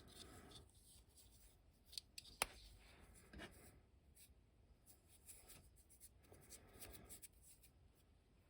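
Faint handling sounds: light rustling and rubbing with a few small sharp clicks, the clearest two about two seconds in.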